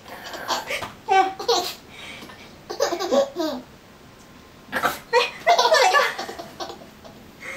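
A person laughing in three bursts of quick, voiced pulses, the last and loudest about five to six seconds in.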